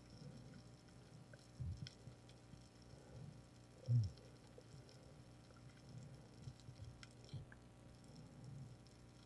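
Faint underwater ambience picked up by a submerged camera: scattered small clicks and crackles, with a few low muffled thumps, the strongest about four seconds in.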